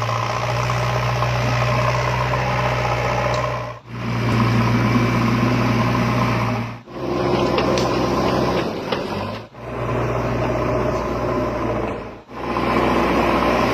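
Engine idling sound effect, a steady low hum with a knock to it, broken by a brief cutout about every three seconds, as if one short recording is looping.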